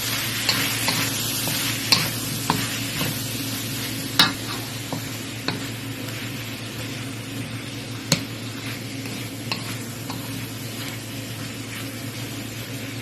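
Sliced tomatoes, onion and garlic sizzling in oil in a hot pan while being stirred with a spatula, with a few sharp clicks of the spatula against the pan, the loudest about four and eight seconds in.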